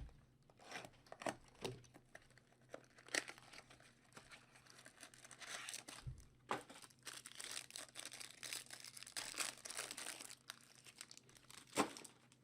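Trading-card packaging being opened by hand: a wrapper torn and crinkled, with a stretch of steady rustling in the middle and several sharp clicks and knocks as the box and cards are handled.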